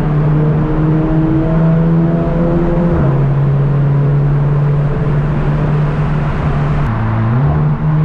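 Volkswagen Golf 6 GTI's turbocharged four-cylinder engine and titanium exhaust running steadily while driving, heard through open windows in a road tunnel. The engine note drops to a lower pitch about three seconds in, then dips again near the end and climbs straight back up.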